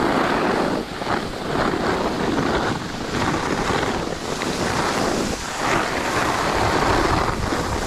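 Wind buffeting the microphone of a camera carried on a ski run, a loud, uneven rush with low rumble, over the hiss of skis sliding on snow.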